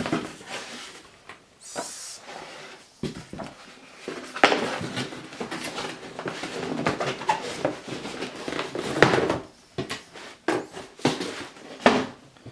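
A cardboard shoebox being opened and its contents handled: irregular rustling and scraping with sharp knocks and clicks, the loudest about four and nine seconds in.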